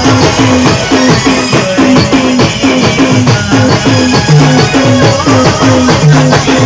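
Band music: fast, dense drumming with a rattling shaker-like percussion, over held melodic notes that step between pitches.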